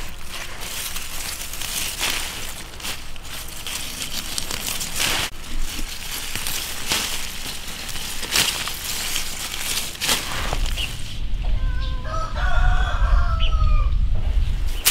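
Leaves rustling and stems snapping in quick crackly clicks as young leafy greens are pulled up by hand. About eleven seconds in, a rooster crows in one long wavering call over a low rumble, the loudest sound here.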